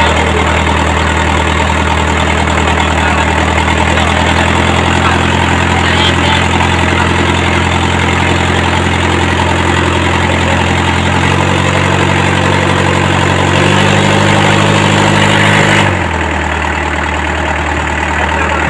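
Mitsubishi Colt Diesel truck engine, a four-cylinder diesel mounted in a fishing boat, running steadily just after being rope-started on a flat battery. Its speed steps up twice in the second half, then drops back to a lower idle shortly before the end.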